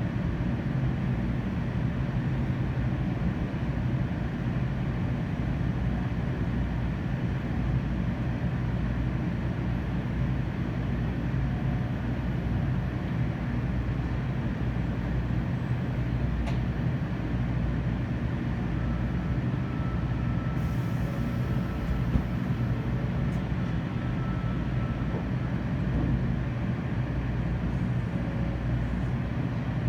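Steady running noise inside an N700 series 8000 Shinkansen car: a continuous low rumble of the train under way. A faint high whine comes in for a few seconds in the middle.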